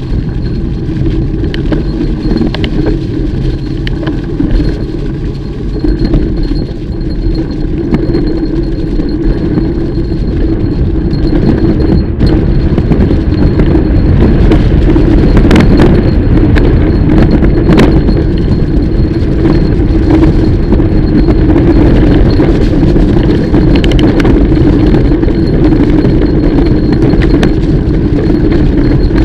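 Mountain bike being ridden along a dirt trail: a steady loud rumble of tyres and wind on the microphone, with frequent rattles and clicks from the bike. It gets louder about a third of the way through.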